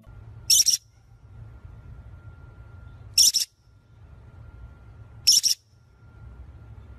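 Featherless small parrot giving three short, harsh, high-pitched screeching calls about two and a half seconds apart, each in two quick parts.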